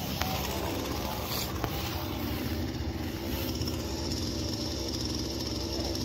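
An engine running steadily at a low, even pitch.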